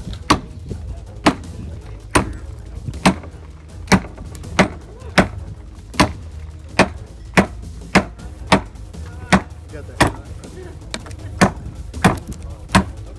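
A run of sharp, short blows repeating about one and a half times a second, somewhat unevenly, with little ringing after each.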